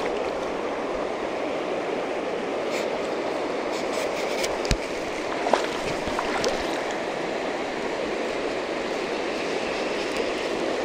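Shallow river water rushing steadily over a rocky bottom, with a few small clicks about halfway through.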